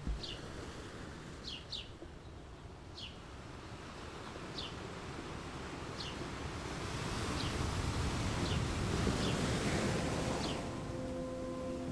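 Ambient seaside soundscape: short falling bird chirps about every second or so over the hiss of surf, which swells into a breaking wave from about six to ten seconds in. A steady low tone comes in near the end.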